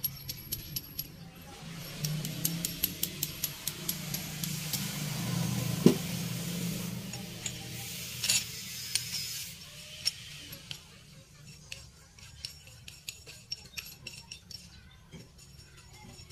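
Light metallic clinks and taps as the steel shaft and small parts of a motorcycle rear monoshock are handled, in runs of quick clicks.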